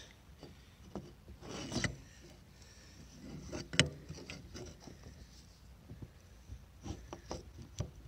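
Handling noise on a plywood board: faint rubbing and scrapes with scattered light knocks and a few short clicks, the sharpest about four seconds in.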